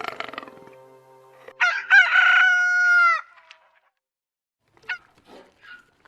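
Rooster crowing once: a cock-a-doodle-doo that starts with short rising notes and ends in a long held note that falls away. A few short, faint calls follow near the end.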